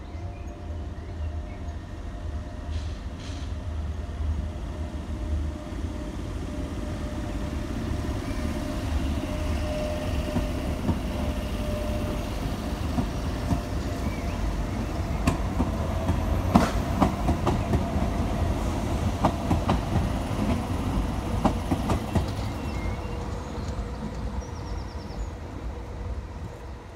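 Tyne and Wear Metrocar train passing on the line: a steady rumble with a steady hum, growing louder, then wheels clicking over rail joints as it goes by mid-way, and fading as it pulls away near the end.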